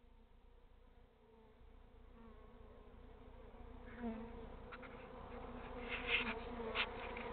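Swarm of honey bees buzzing: a steady drone that fades in after about a second and a half of near quiet and grows louder as the stirred-up bees fly around.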